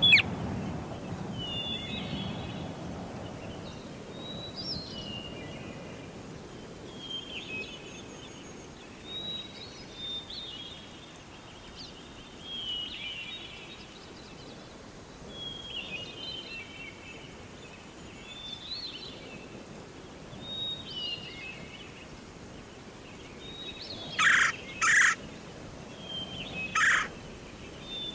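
Wild birds in a forest. A songbird repeats short warbled phrases every second or two. Near the end, a bird gives several loud, harsh calls, mostly in pairs.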